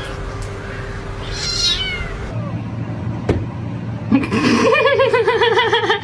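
Cats meowing: a short falling meow, a sharp click, then a loud, long warbling yowl near the end.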